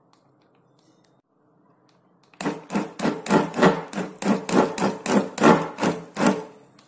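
Electric hand blender run in quick short pulses, about three a second, its motor whirring as the blade churns soaked bael fruit pulp and water in a glass bowl. The pulses start about two seconds in and stop shortly before the end.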